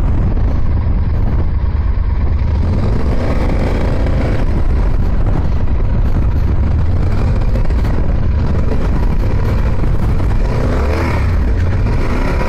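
Yamaha adventure motorcycle's engine pulling at low speed over a rough dirt track, revving up and down a few seconds in and again near the end, over a heavy low rumble.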